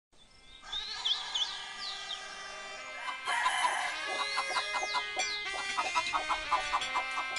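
Farmyard dawn sound effects over a light music bed: a rooster crowing and birds chirping in quick high swoops, fading in from silence. Short regular taps join the music from about halfway through.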